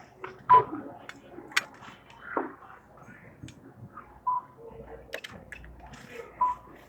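Checkout barcode scanner beeping three times as items are scanned, with rustling and light knocks of items and bags being handled in between.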